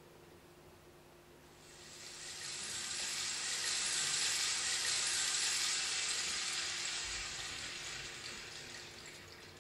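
A hissing noise swell in the dance's soundtrack, rising from near silence about two seconds in, holding, then fading away near the end.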